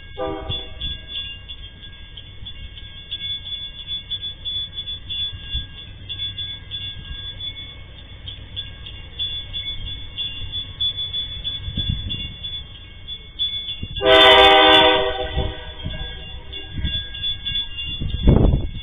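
Diesel freight locomotive approaching with a low engine rumble, giving a short horn toot just after the start and one loud horn blast of a bit over a second about two-thirds of the way through. A thin high ringing runs behind it, and a low thump comes near the end.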